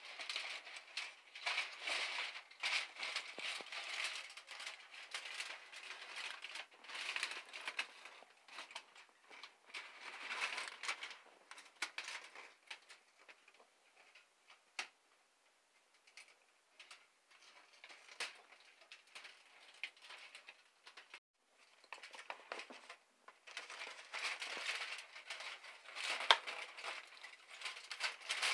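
Aluminium foil crinkling and crackling as it is handled and pulled back on disposable foil pans. The crackling is irregular, dies down for a stretch in the middle and gets busier again near the end.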